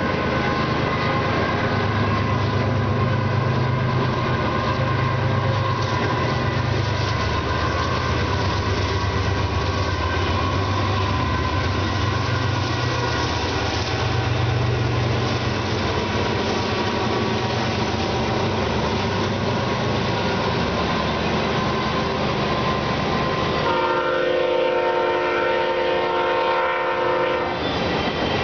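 Union Pacific diesel locomotives hauling an autorack freight train across a steel bridge: a steady low engine rumble with rail noise, then near the end a long train-horn blast of about four seconds.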